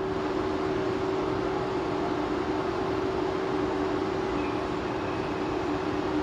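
Train at the platform giving off a steady mechanical hum with a constant tone, joined by a second, lower tone about half a second in.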